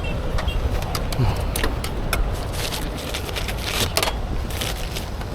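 Low, steady rumble with irregular light clicks and clinks scattered through it, about a dozen over the few seconds.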